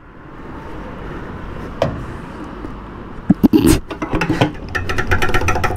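Petrol pump nozzle being worked at a motorcycle's fuel filler: a few sharp knocks of metal on the tank about halfway through, then a fast run of ticks as the tank is filled.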